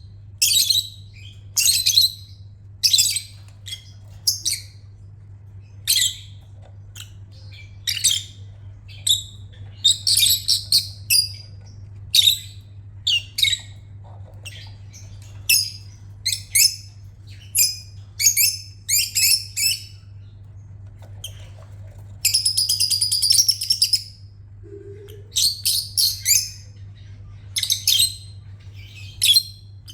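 Lovebird calling in short, high, shrill chirps about once a second, with a rapid chattering burst of about two seconds near three-quarters of the way through. A faint steady low hum runs underneath.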